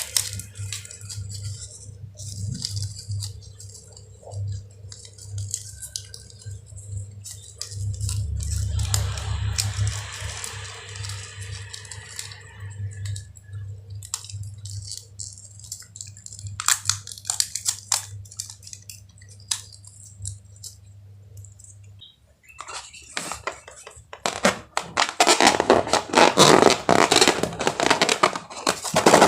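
Slime being handled and mixed: scattered sticky clicks and pops, then a dense crackling squish from about 24 seconds in, over a steady low hum.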